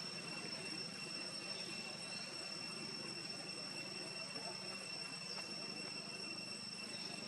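Steady outdoor background noise: a constant high-pitched whine over a low hum, unchanging throughout.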